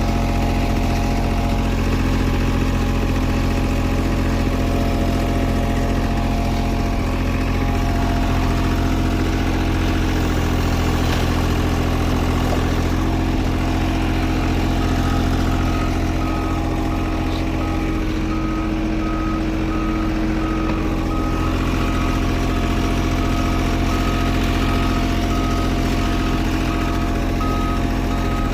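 Heavy diesel paving equipment running steadily. About halfway through, a backup alarm starts beeping at an even pace, about once a second, as the machine reverses.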